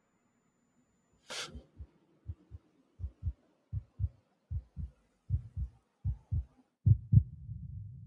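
A short, sharp burst of noise, then a heartbeat sound effect: paired low thuds (lub-dub) a little under a second apart, growing louder, with a low rumble trailing after the last pair near the end.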